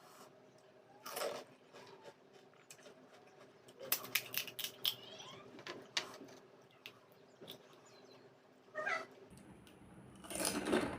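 Close-up eating of pani puri: crisp puri shells crunching between the teeth in a quick run of crackles midway, with wet mouth and slurping sounds before and after.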